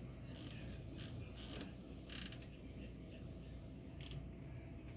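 Quiet room tone with a steady low hum and a faint thin tone, broken by a few small clicks and rustles of handling.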